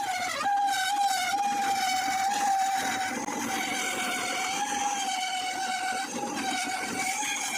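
Electric drill spinning a grinding stone, running with a steady high whine. The pitch dips briefly about half a second in, then settles again.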